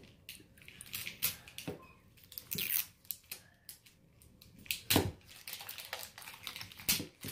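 Plastic toy packaging crinkling and tearing as it is picked at and peeled by hand: irregular sharp crackles, the loudest about five seconds in and another just before the end.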